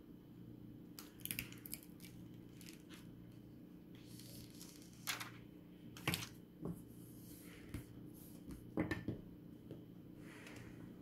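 Clear plastic protective film being peeled and pressed onto the back of an iPhone with a card: scattered short crinkles, rustles and clicks, with the sharpest about five, six and nine seconds in, over a faint steady hum.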